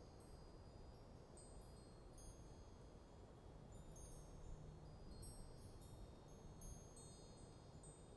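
Wind chimes ringing faintly, their high metallic tones struck at irregular moments and overlapping, over a low steady rush of light breeze.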